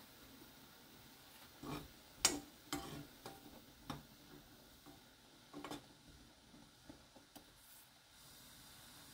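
A metal spoon stirring fresh kidney beans in a pot of boiling water, clinking and knocking against the beans and the pot several times from about a second and a half in to about six seconds, with a few lighter taps after. Under it runs the steady faint hiss of the bubbling water.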